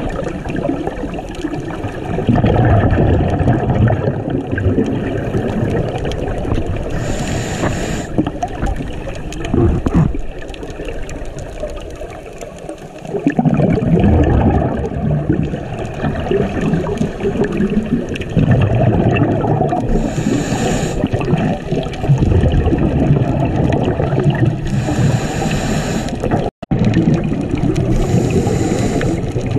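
Underwater water noise on a camera: steady gurgling and churning rumble, with a few short hissing bursts every several seconds and a split-second dropout late on.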